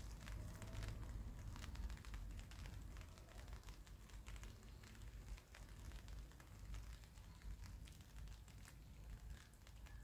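Rain falling, scattered drops tapping and crackling on surfaces over a faint low rumble.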